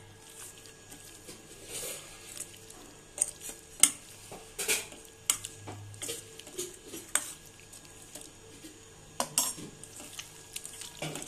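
Raw mutton pieces being mixed with spices in a stainless steel bowl: irregular clinks and knocks against the steel as the meat is stirred and turned.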